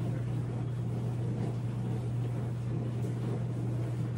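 A steady low electrical hum at one constant pitch over faint background hiss, unchanging throughout.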